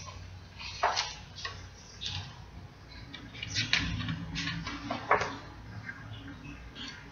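Paper rustling as the pages of a large picture book are handled and turned, in short irregular scrapes, over a low steady hum.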